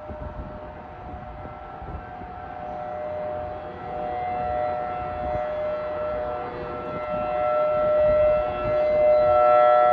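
Outdoor civil defense warning siren sounding a steady tone for its monthly test. It grows louder in swells as the rotating siren swings toward the listener, and is loudest near the end.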